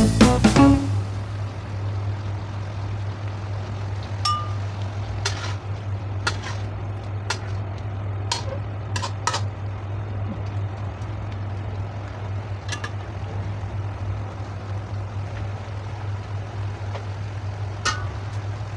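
Metal spatula stirring food in a wok, with scattered sharp clinks and scrapes against the pan, over a steady low hum.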